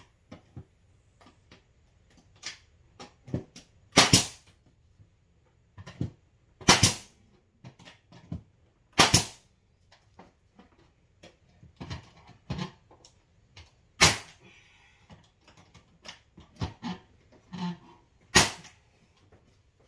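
Pneumatic nail gun on an air hose firing five times, a few seconds apart, each a sharp shot driving a nail into wooden window trim. Quieter clicks and knocks come between the shots.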